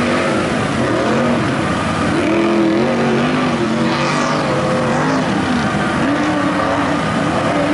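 Duramax diesel engine of a mud truck on tractor tires, crawling through a mud pit with its revs repeatedly rising and falling.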